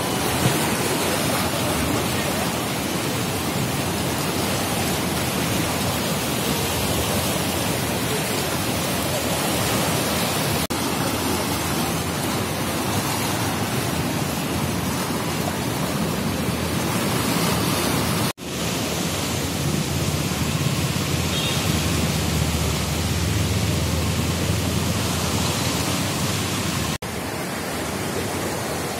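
A swollen, muddy river in flood rushing fast: a steady, loud rush of water noise. It breaks off abruptly twice, about two-thirds of the way through and near the end, and after the first break there is a deeper rumble.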